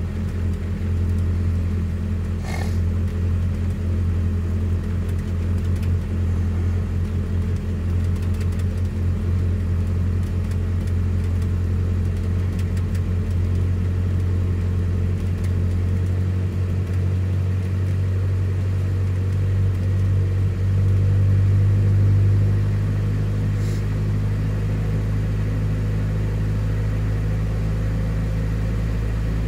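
Vehicle engine idling steadily after a cold winter startup, heard from inside the cab. About twenty seconds in the idle rises a little, then settles back down a couple of seconds later.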